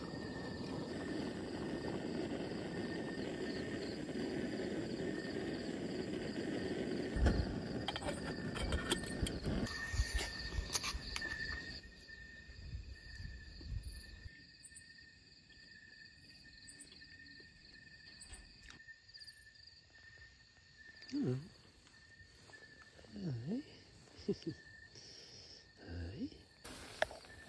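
Backpacking gas canister stove burning with a steady hiss for about the first twelve seconds, over a steady high chirring of night insects. After that it is quieter, with three short sounds that drop in pitch near the end.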